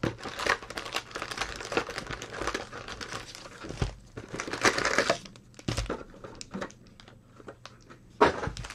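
Foil-wrapped baseball card packs crinkling and rustling as they are pulled from the cardboard box and set down in stacks on the table, with a few light knocks and a sharp click near the end.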